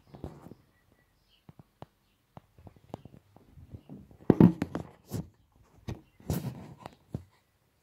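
Scattered clicks, knocks and rustling of handling noise as a phone and a handheld RF detector are moved about, with louder rustles about four and a half and six and a half seconds in.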